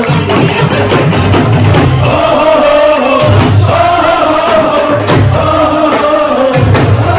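Loud Indian wedding dance song with a sung vocal over a heavy, pulsing bass beat.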